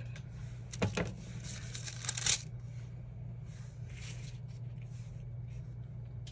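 Paper planner pages being handled and rustled on a table, with a couple of light clicks about a second in and a louder rustle of paper around two seconds in. A steady low hum runs underneath.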